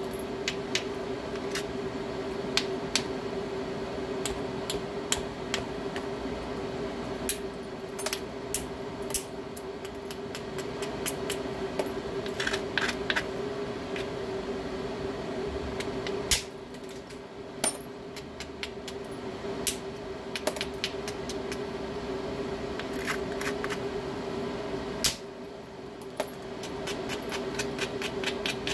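Irregular sharp stone-on-stone clicks and taps from knapping a stone, some single and some in quick runs, over a steady hum.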